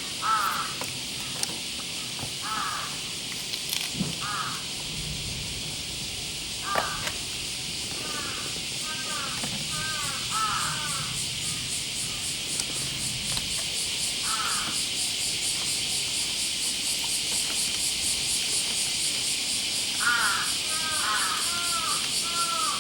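Crows cawing: single caws scattered through, then a quick run of several caws near the end, over a steady high-pitched hiss.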